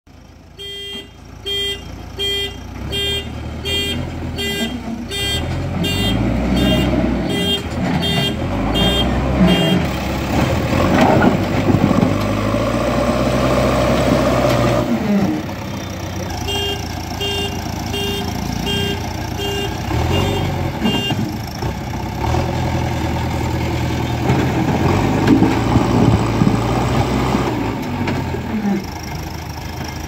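JCB backhoe loader's diesel engine running and revving up and down as the machine works. Its reversing alarm beeps about twice a second for roughly the first ten seconds, and again for a few seconds after the middle.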